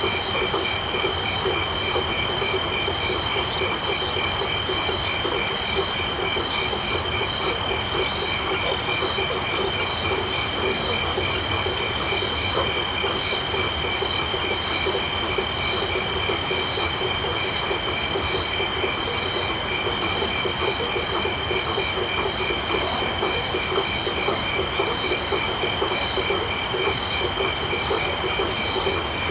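Dense night chorus of crickets and frogs calling together. Several steady, high-pitched insect trills sit over a lower chorus of rapidly pulsing frog calls, unchanging throughout.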